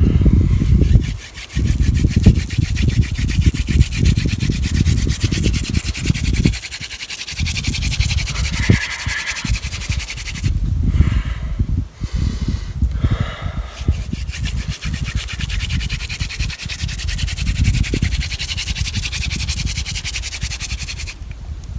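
Mullein spindle drilled hard into a white pine fireboard by hand: a steady friction rubbing, broken briefly a few times near the middle, with heavy low thumping from the hands and kit. This is the friction-fire hand drill grinding out hot char dust toward an ember.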